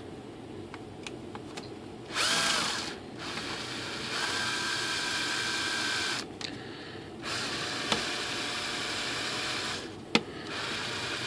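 Cordless drill/driver driving a small screw in four short runs with pauses between: a brief spin-up about two seconds in, then longer runs of two to three seconds each. A single sharp click comes about ten seconds in.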